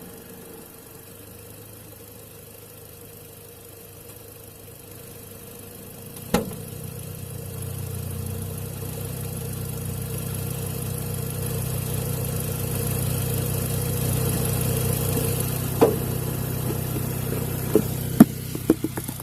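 Seat Ibiza Cupra 1.8T turbocharged four-cylinder engine running, heard from inside its airbox. It grows louder through the middle of the stretch. There are a few sharp clicks, one about six seconds in and several near the end.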